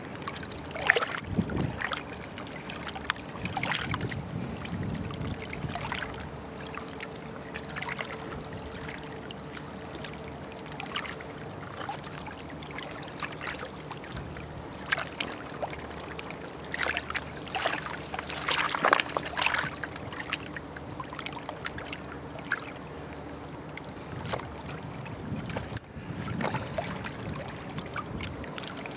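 Handling noise of magnet-fishing finds: irregular scrapes, knocks and rustles as rusty scrap metal and the magnet's rope are handled close to the microphone.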